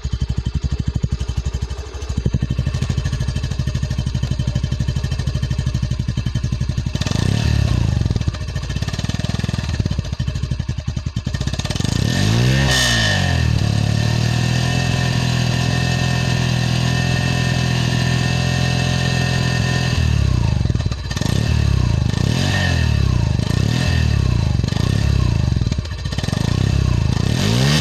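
Hero Glamour 125's single-cylinder four-stroke engine running, heard close up at the exhaust silencer. It idles, then is revved several times, with a clear rise and fall in pitch about halfway through and a few short blips near the end.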